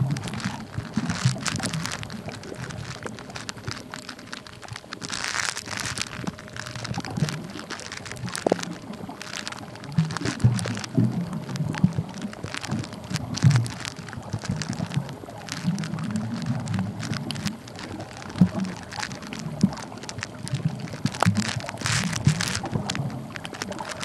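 Underwater sound heard through a camera's soft waterproof pouch: a constant crackle of sharp clicks with irregular low rumbles and sloshing.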